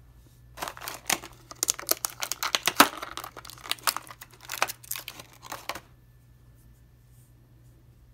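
Clear plastic blister tray crinkling and crackling as hands flex it and pull an action figure out. It starts about half a second in, runs for about five seconds in irregular crackles, then stops.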